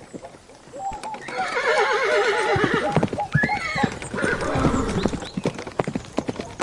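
An animal's loud, wavering, warbling call, followed by a shorter rising-and-falling call and then a run of quick, sharp knocks.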